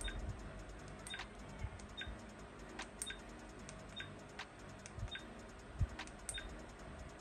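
Buttons on a small body camera pressed about once a second to step through saved video files, each press giving a faint click and a short high beep.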